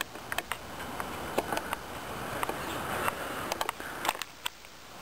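Handheld camera handling noise: a steady hiss with scattered light clicks and taps, dropping quieter in the last second.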